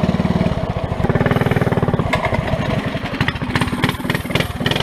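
Honda GX200 single-cylinder go-kart engine running loud, its note dropping about half a second in, then firing less evenly, with a few sharp knocks in the last couple of seconds.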